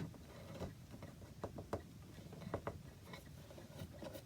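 Faint, irregular light clicks and taps as a steel hinge-pin rod and the wooden clock case are handled.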